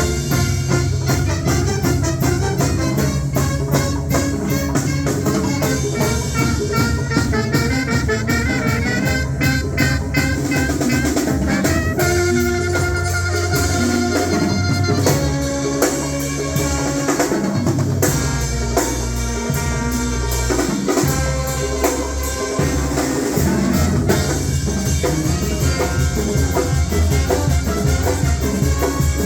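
Music playing loudly, with a drum kit keeping a steady beat under bass and pitched melody lines.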